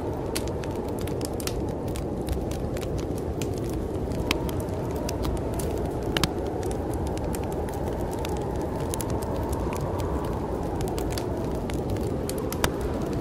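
Wood fire crackling with frequent small pops and a few louder snaps, over a steady snowstorm wind that rises in pitch about two-thirds of the way through and falls back.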